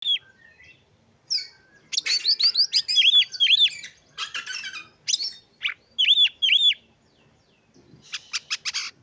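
Oriental magpie-robin singing a varied song in short phrases with pauses: loud arched whistled notes, often given in pairs, fast trilled runs and harsh scratchy notes.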